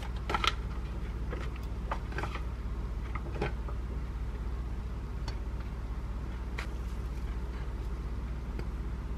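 Soft taps and handling noises as a rice paper wrapper is dipped in a bowl of warm water and salad greens are laid on a wooden cutting board, a few light clicks in the first several seconds, over a steady low hum.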